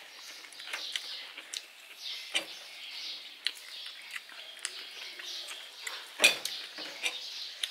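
Birds chirping in the background, with scattered light clicks and taps of spoons on plates as food is eaten at the table; one louder knock about six seconds in.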